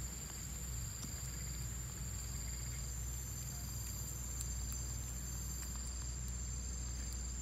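Steady forest ambience of insects: a continuous high-pitched buzz with a shorter chirping trill repeating about once a second, over a low rumble and a few faint clicks.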